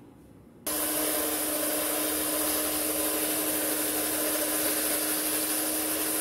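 Handheld electric mixer switched on suddenly a little under a second in, then running steadily at one speed with a constant hum, blending cake batter in a steel bowl.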